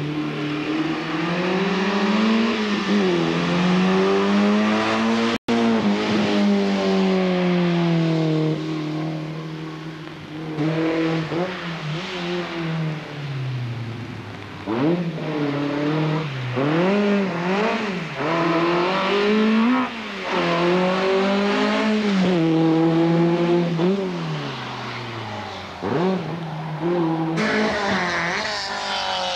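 Hillclimb race car engines revving hard and falling back through gear changes as the cars accelerate up the hill, the pitch climbing and dropping again and again. The sound cuts out completely for a split second about five seconds in.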